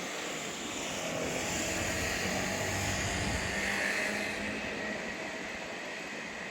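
Keihan 600-series train running, a steady rushing noise with a high whine that swells to a peak about four seconds in and then fades.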